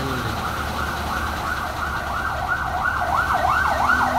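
Emergency vehicle siren wailing in a fast yelp, its pitch sweeping up and down about three times a second, faint at first and growing louder toward the end, over a low steady engine rumble.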